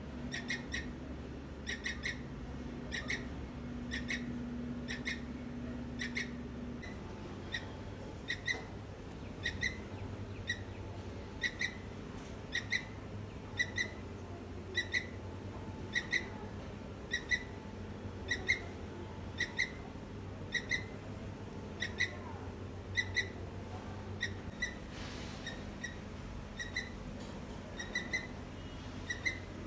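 A squirrel calling with short, high, bird-like chirps repeated at a steady pace of about one a second, in close pairs for the first several seconds.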